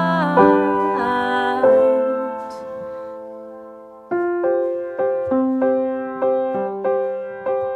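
Background music at the close of a gentle song: sustained piano chords ring and die away over the first few seconds, then soft piano notes start again about four seconds in, struck roughly twice a second.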